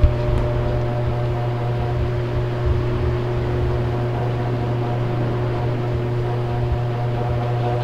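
Steady low machine hum with a few faint steady tones above it, like a small motor or appliance running. A single sharp click right at the start.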